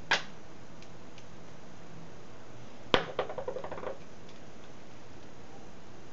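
A single click, then about three seconds in a sharp knock followed by a brief rattle of small clicks: small makeup items, a plastic compact and a lip brush, being picked up and handled.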